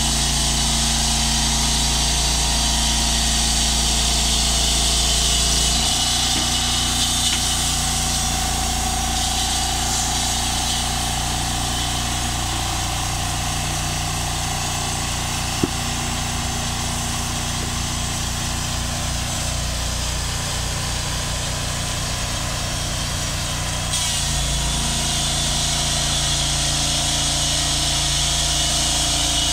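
Engine of a portable band sawmill running steadily. Its note changes about six seconds in and changes back about five seconds before the end, with a single sharp click partway through.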